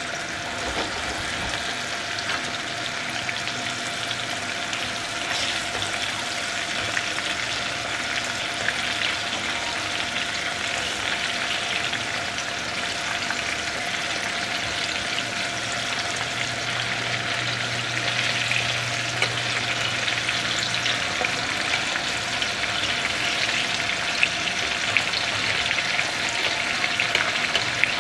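Crumb-coated chicken strips sizzling and crackling in hot oil in a frying pan, growing a little louder as they fry. In the later part a metal utensil turning the pieces adds sharper clicks and scrapes against the pan.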